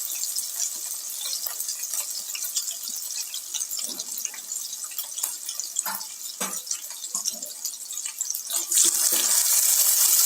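Chopped onions and green chillies sizzling in hot oil in a pan: a steady hiss with scattered pops and crackles, growing louder about nine seconds in.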